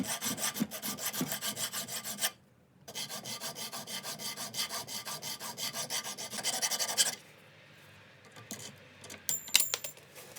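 Rapid back-and-forth hand scrubbing with an abrasive on the steel of an old pipe wrench, about six strokes a second, with a short pause after about two seconds. The scrubbing stops about seven seconds in, followed by a few light metallic clicks and one short ringing clink near the end.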